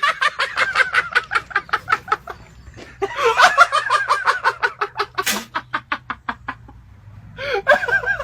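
Hard, helpless laughter: three long bouts of rapid ha-ha pulses, each starting loud and fading out, the last one starting near the end.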